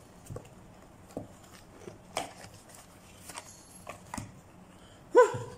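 Cardboard watch box being opened by hand: scattered light taps and scrapes as the inner tray slides out of its sleeve, with a short vocal grunt near the end.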